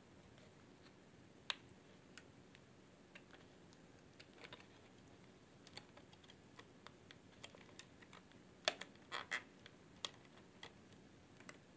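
Scattered light clicks and ticks of a small tool and fingertips working at the metal casing of a 2.5-inch Western Digital Scorpio Blue hard drive, prying at its label and screws. The loudest handful of clicks come about nine seconds in.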